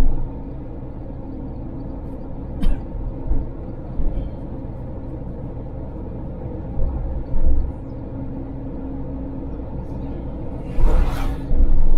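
Car engine and road noise heard inside the cabin of a Suzuki Jimny driving on the highway: a steady low rumble with a constant engine hum. Several short low thumps come through, and a louder rushing surge near the end.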